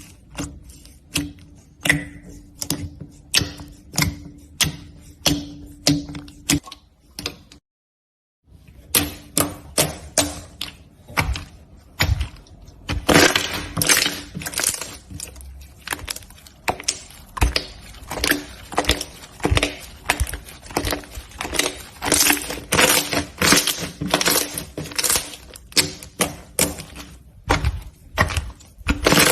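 Slime being pressed and worked by hand, giving a run of sharp crackles and pops, about two a second. After a short silent gap about a quarter of the way in, the crackling comes back denser and louder.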